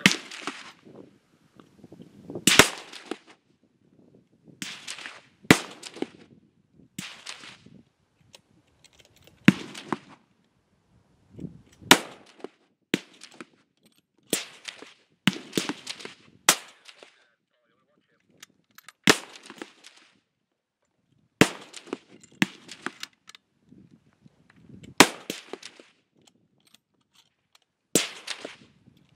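Rifle shots from several shooters on a firing line, fired singly at irregular intervals of a second or two. Some shots are louder and sharper, others fainter, and each has a short ringing tail.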